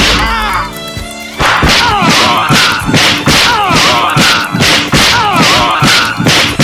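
Music with added fight sound effects: a fast run of punch-like impact hits, about two to three a second, starting about a second and a half in, each with a short falling tone.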